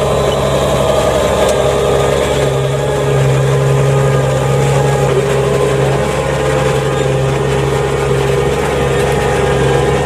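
New Holland T7.185 tractor's diesel engine running steadily under load as it pulls a five-furrow reversible plough.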